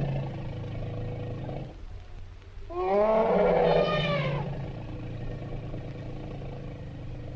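Asian elephant calling: a low rumble, then about three seconds in a loud pitched call that rises and falls over about a second and a half, trailing off into the low rumble again.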